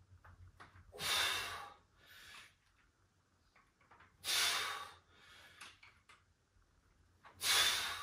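A man's forceful exhales, three loud ones about three seconds apart, each followed by a softer breath: effort breathing in time with each rep of a dumbbell lift.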